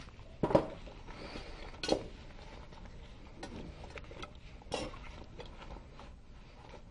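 Metal tools clinking and knocking as they are picked up and set down on a table, with sharper knocks about half a second in, near two seconds and near five seconds.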